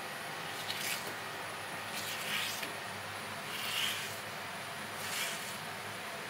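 Long kitchen knife drawn through a raw tuna loin on a cutting board: four soft slicing swishes about a second and a half apart, over a steady background hiss.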